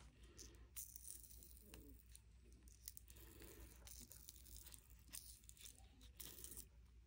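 Faint peeling and rubbing of a flexible silicone coaster mold being flexed off a cured epoxy resin coaster, with a few small scattered clicks.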